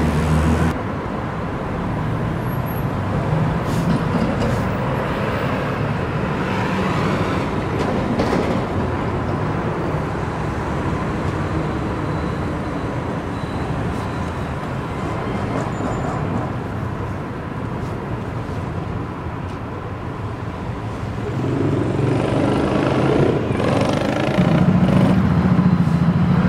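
Steady city street traffic noise from passing road vehicles, with a commuter train running on the elevated line. About 22 seconds in it swells into a louder low rumble.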